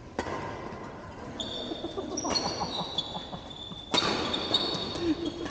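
Badminton rally: racket strikes on the shuttlecock, with the loudest strike about four seconds in, and sneakers squeaking on the court floor.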